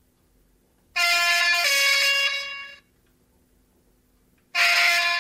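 ESU sound decoder in an H0 model of the ÖBB class 2068 diesel locomotive playing its horn through the model's small loudspeakers: a short two-tone blast, a higher note stepping down to a lower one, lasting about two seconds, then about three and a half seconds in the long horn starts on the same high note.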